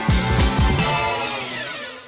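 Electronic background music: deep bass notes sliding down in pitch under a dense chord, then the music fades out over the second half.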